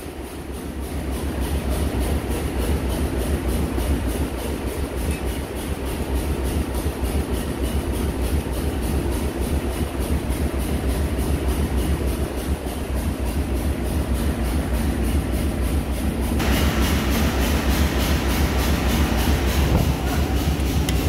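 Engine-room machinery running: a steady, loud low drone with an even, rapid pulse, as from diesel engines running on board ship. More hiss joins about three-quarters of the way through.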